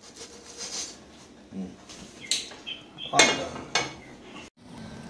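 A frying pan and spatula clattering and scraping against a china plate as a pancake is slid off onto the stack: a handful of short clinks and scrapes, the loudest a little after three seconds in. The sound cuts off abruptly near the end.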